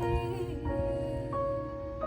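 Soft live acoustic music, a slow passage of several held notes sounding together.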